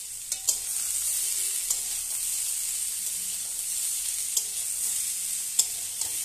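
Potato and cauliflower pieces with green peas sizzling steadily in hot oil in a steel kadai. A metal spatula stirs and scrapes them, giving a few sharp clicks as it knocks the pan.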